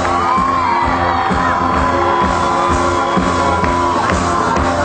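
Live pop band playing a song: a high melody line bends and then holds one long note over a steady bass.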